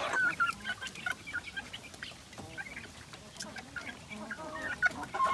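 A group of young native chickens peeping and clucking, many short high calls overlapping.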